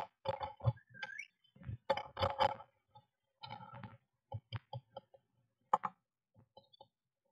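Blue tit moving about inside a wooden nest box: irregular bursts of scratching, tapping and rustling as its claws and bill work on the wood and the nesting material while it arranges feathers in the nest cup.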